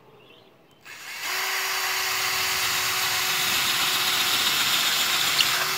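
Ryobi cordless drill with a 7/32-inch bit drilling a pilot hole through roof flashing into a wooden rafter for a lag bolt. The motor starts about a second in and then runs under load at a steady, even whine.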